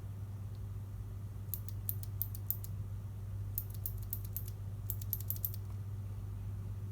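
Mechanical keyboard switches pressed in three quick runs of sharp clicks, each run about half a second to a second long.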